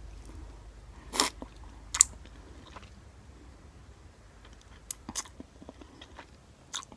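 Close-up eating of instant ramen noodles: chewing with a few short, sharp slurps as forkfuls of noodles are sucked in.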